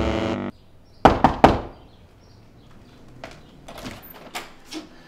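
A musical sting cuts off, then three quick, loud knocks on a door. A few fainter taps and clicks follow as the door handle is worked.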